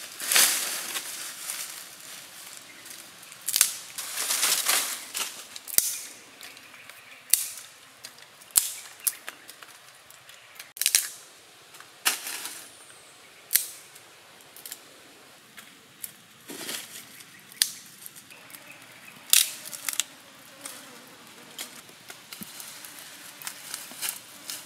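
Dry dead branches and twigs cracking and snapping, a string of sharp, irregular cracks, with rustling of the branches and dry leaf litter in between.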